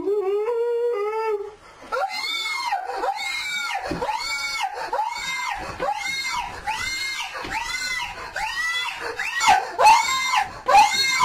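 A person screaming in terror. A held cry in the first second and a half gives way to repeated high-pitched shrieks, about two a second.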